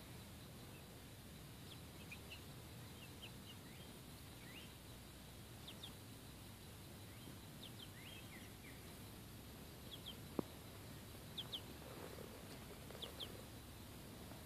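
Young chickens giving scattered, faint, short high chirps, some in quick pairs. A single sharp click sounds a little past the middle.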